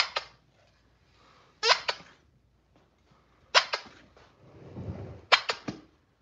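Golden retriever puppies giving several short, sharp yips and barks, spaced a second or two apart, with a low scuffling rumble just before the last few.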